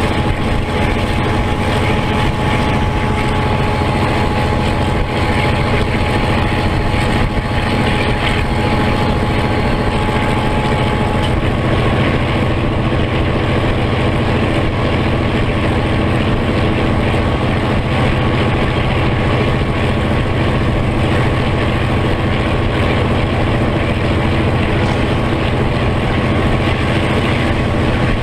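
EMD 567 diesel engine of a New Zealand Railways Da class (EMD G12) locomotive running steadily under power, heard close up from on board. A thin steady whine stops about eleven seconds in.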